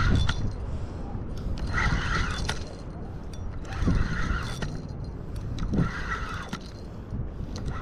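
Spinning reel being cranked in short spells about every two seconds, its gears whirring with light clicks, as a hooked sargo is reeled in. A steady low rumble runs underneath.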